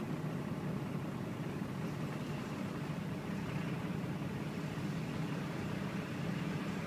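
Steady low rumble of a vehicle's engine and tyres heard inside its cabin while it drives slowly.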